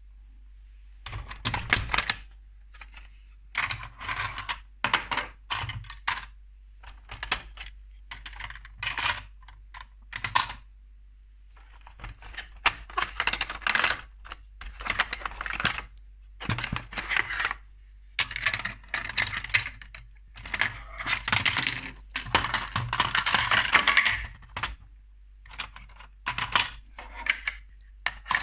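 Hard plastic toy parts of a toy police jeep and its trailer being handled, giving irregular bursts of clicking and rattling with short pauses. The busiest, longest rattle comes a little past two-thirds of the way through.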